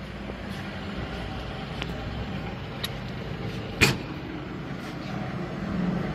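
Sesame roasting machine running with a steady hum, a few light clicks, and one sharp metallic clack about four seconds in as its side door is opened onto the lit gas burners.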